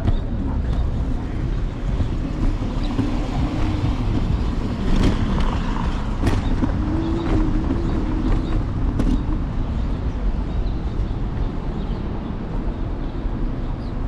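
Street noise on an electric scooter ride through city traffic: a steady low rumble of road and wind on the handlebar-mounted camera. A passing vehicle's hum wavers in pitch through the middle, with a few sharp knocks.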